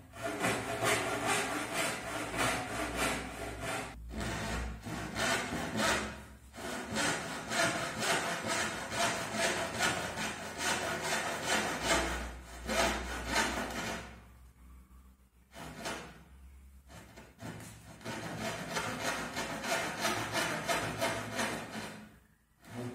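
Tenon saw cutting across a wooden strip by hand, in quick, even back-and-forth strokes. The strokes break off briefly a few times, with a longer lull a little past halfway before the sawing picks up again.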